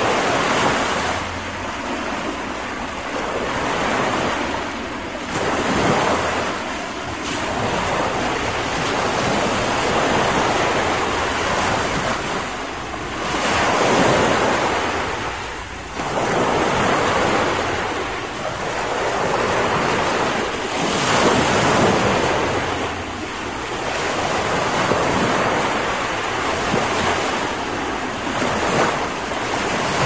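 Ocean surf: waves washing in continuously, the rush of water swelling and ebbing every few seconds.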